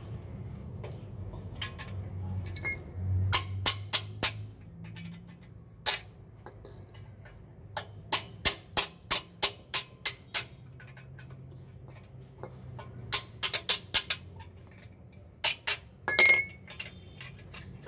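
A spanner working the clutch pressure-plate bolts on a flywheel, giving runs of sharp metallic clicks at about four a second in bursts of two to ten. Near the end comes one louder metal clink with a brief ring.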